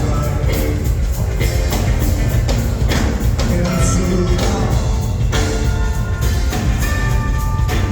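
Live rock band playing loud, with a heavy bass line under steady drum hits.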